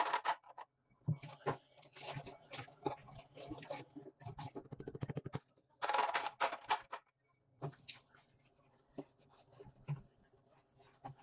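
Cleaning at a stainless steel kitchen sink: irregular rustling and scraping bursts, with a run of quick strokes about four seconds in and a louder burst about six seconds in, then a sponge rubbing over the soapy steel basin near the end.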